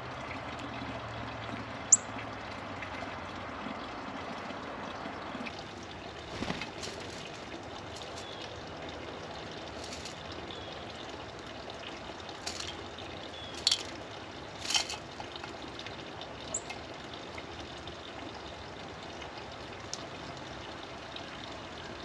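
Steady outdoor background hiss, water-like, with a few short sharp sounds and brief high chirps of small birds scattered through it.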